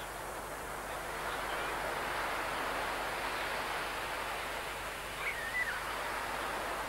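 Steady wash of surf on a beach, swelling a little about a second in, with a short high chirp about five seconds in.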